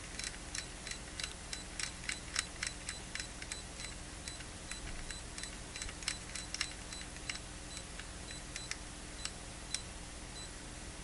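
Detent clicks of an electronic load's rotary adjustment knob being turned in quick steps to raise the current setting, the clicks coming in rapid runs for the first several seconds and then spacing out. A steady low hum from the load's cooling fans runs underneath.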